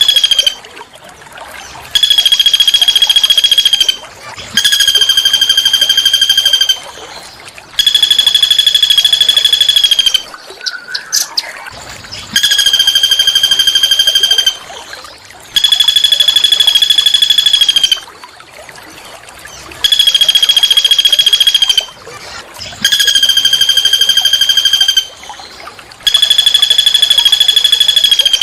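A small songbird repeating a harsh, rapid rolling trill held on one high pitch. Each trill lasts about two seconds and comes about every three seconds, nine in all.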